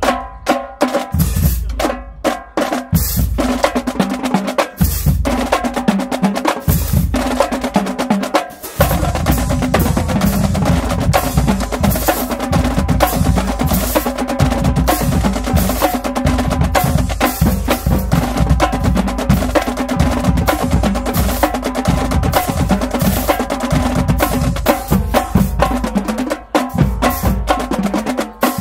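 Marching band drumline playing: snare, tenor and bass drums with cymbals in a fast, driving rhythm. The playing grows fuller and denser about a third of the way in.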